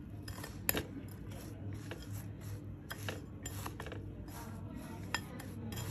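Chocolate and mawa being mixed in a bowl for gujiya filling: faint, irregular light clicks and scrapes, over a low steady hum.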